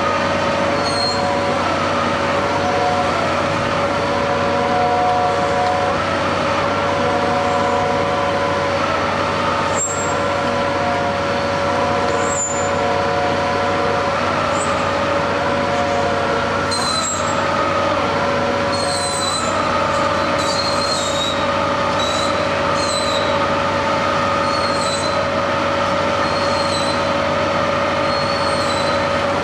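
Heavy construction machinery running steadily with a droning, multi-tone hum. From a little past the middle it is joined by short, high metallic squeals that come again and again.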